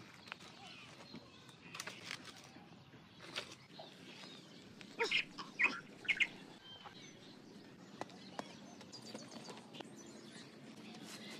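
Scattered knocks and scrapes of a large knife blade digging into dry soil and leaf litter, with birds chirping. A short cluster of louder, sharper sounds comes about five seconds in.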